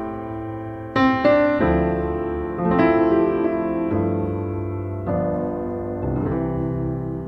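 Background piano music: soft chords struck about once a second, each left to ring and fade.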